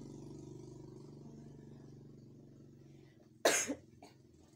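A vehicle engine running and fading away over the first three seconds. Then a person gives one loud, short cough about three and a half seconds in, with a fainter second cough just after.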